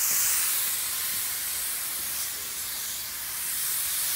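Hose-fed HVLP paint spray gun spraying, a steady hiss of air and atomised coating. A faint low hum comes in near the end.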